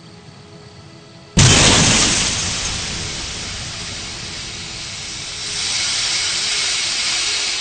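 Faint crickets chirping, cut off about a second and a half in by a sudden loud rushing blast. The blast fades slowly and swells again near the end.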